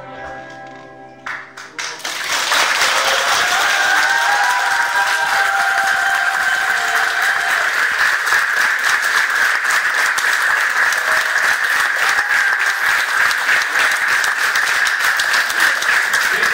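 The last held note of a song ends about a second in. Then an audience starts applauding about two seconds in and keeps clapping steadily.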